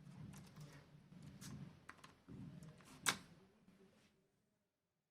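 Laptop keyboard key pressed and tapped several times: a run of small clicks over a low rustle of handling, with one sharper click about three seconds in, as the refitted keycap is checked for being seated on its clips.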